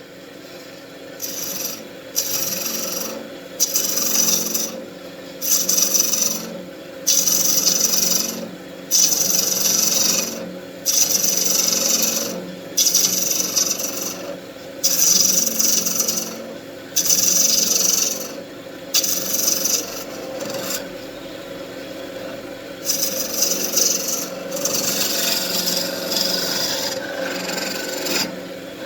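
Wood lathe running with a steady motor hum while a turning tool cuts down a wooden wand blank: a hissing scrape in repeated passes, roughly one every two seconds, becoming more continuous near the end.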